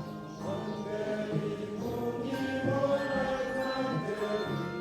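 A group of voices singing together, choir or congregation style, in long held notes.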